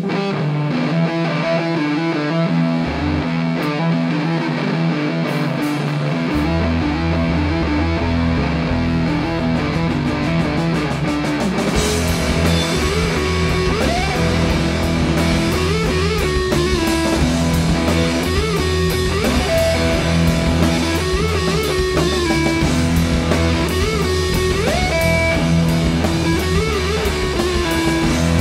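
Live rock band playing an instrumental passage with electric guitars and drum kit. It opens on a held guitar chord, the low end comes in about six seconds in, and the full band kicks in around twelve seconds in, with a wavering lead line over it.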